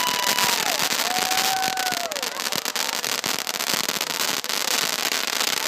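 Fireworks going off: a dense, rapid crackling and popping over a continuous hiss.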